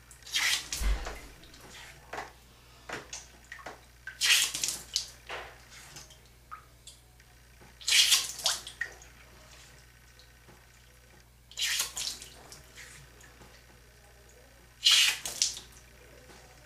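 Five short spurts of water, about every four seconds, flushing out an ear plugged with wax.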